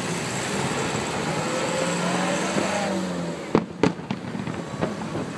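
Fireworks going off: a dense crackling hiss for about three seconds, then two sharp bangs close together, followed by scattered smaller pops.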